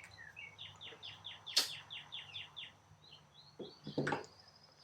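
A bird singing a quick run of short, falling chirps, about four a second, with a few more notes near the end. A sharp click comes about one and a half seconds in, and two knocks come near the end.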